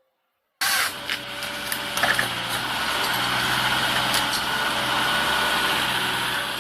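A machine's engine running steadily, starting abruptly about half a second in and fading near the end, with a few sharp clicks or knocks about two and four seconds in.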